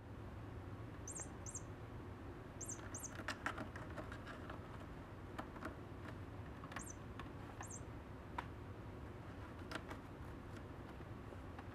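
Kittens' claws catching and scratching on a sisal-wrapped cat-tower post, a scatter of light clicks and scratches over a steady low hum. A few short, very high chirps come in pairs, twice near the start and twice past the middle.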